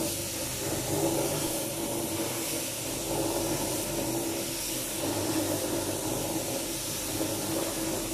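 Single-disc floor polishing machine running steadily on polished concrete, buffing the floor after a densifier coat: a constant motor hum under the hiss of the spinning pad.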